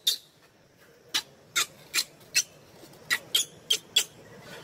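Baby macaque squealing: about ten short, high-pitched shrieks in an uneven series, roughly two a second.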